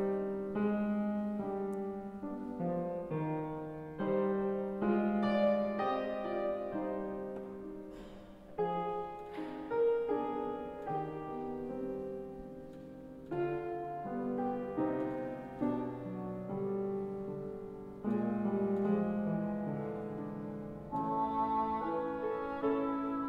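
Cor anglais and piano playing a classical duet: the cor anglais holds a melody of sustained notes over piano accompaniment.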